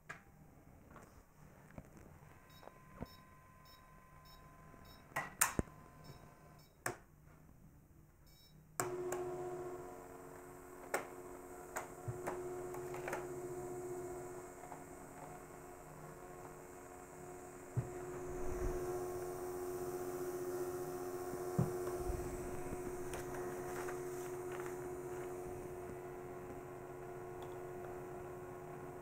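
Chinon DCM-206 image copier taking a picture. A few light clicks come first, then from about nine seconds in its drive motors run steadily with a hum of several fixed notes as the CCD sensor travels and the thermal paper feeds out. A couple of knocks come from the unit being shifted on the table.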